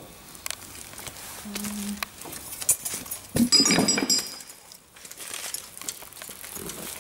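Light metallic clinks and handling noises as bolts are started finger-tight into a Land Rover front-axle swivel housing over its paper gasket, with a louder ringing clink about halfway through.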